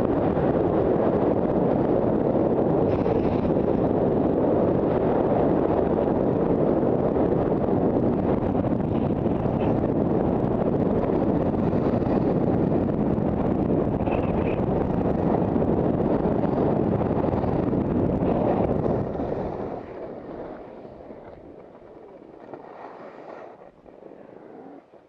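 Wind rushing over the microphone of a skier going downhill at speed, a loud steady rush that falls away sharply about six seconds before the end as the skier slows.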